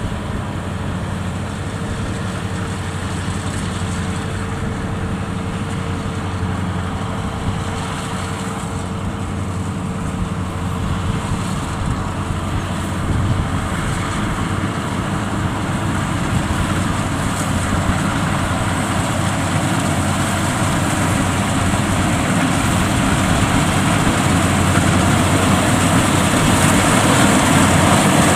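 Diesel engines of an FMWorld WD102 Pro rice combine harvester and a tractor cart hauling rice sacks, running steadily. The sound grows gradually louder toward the end as the combine comes near while cutting.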